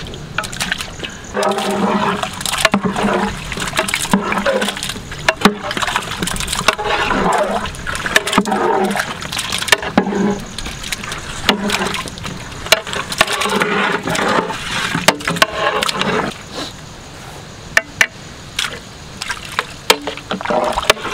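Raw stingray chunks tipped and pushed by hand off an aluminium plate into a pot of masala gravy: repeated wet plops and splashes, with sharp knocks of the plate against the pot.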